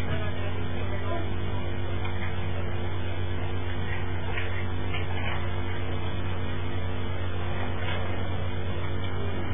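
Steady low hum and hiss from an old, worn video recording, with no clear voices; a few faint, indistinct sounds come through the noise.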